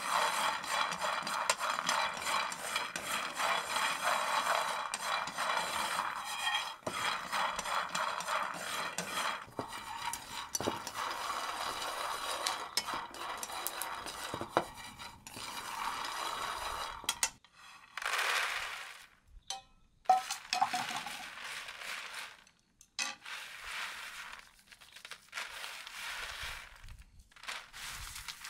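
Peanuts in a dry frying pan, stirred with chopsticks, rattling and scraping against the pan without a break. The stirring stops about 17 seconds in. A few separate rustles and one sharp clack follow, then softer rustling near the end as the peanuts are rubbed by hand on a bamboo tray to loosen their skins.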